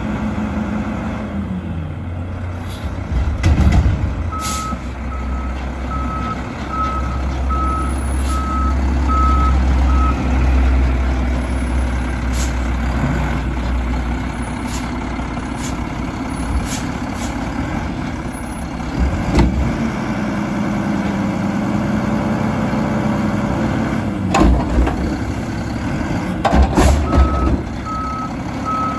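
Mack LR front-load garbage truck with an Amrep body working a dumpster. The engine runs throughout, working harder for several seconds in the first third. Its reverse alarm beeps steadily, a beep a little under a second apart, then again near the end. Several sudden bangs come from the lift arms and container.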